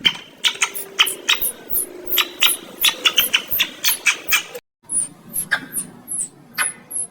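Rapid, very high-pitched squeaks from a small animal, each short and falling in pitch, about three a second. They break off briefly about two-thirds in, then go on.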